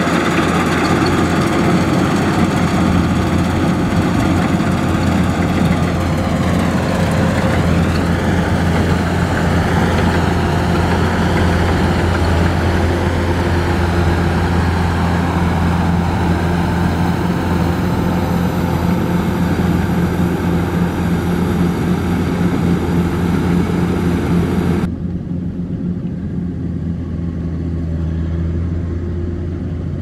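Kubota DC-105X combine harvester running while cutting rice: a steady low diesel engine drone under dense mechanical noise. About 25 seconds in the sound turns duller and a little quieter.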